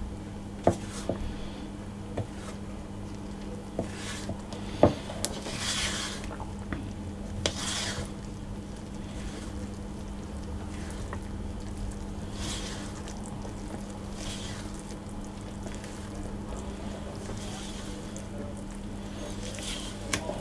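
A spatula stirring and folding sifted flour and cocoa into thick, wet chocolate cake batter in a mixing bowl: soft squishing and scraping strokes every few seconds, with a few light taps against the bowl. A steady low hum runs underneath.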